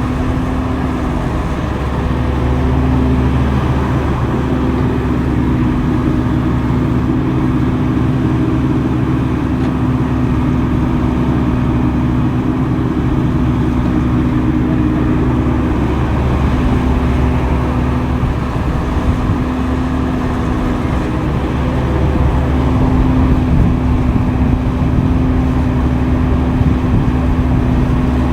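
Diesel engine of heavy earthmoving machinery running steadily, a constant low hum whose pitch shifts slightly a few times.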